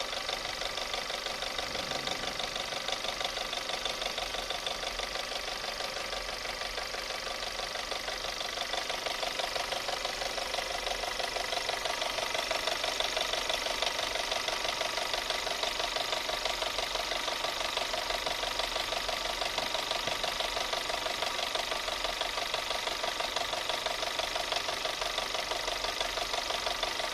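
Engine running with a fast, even knock.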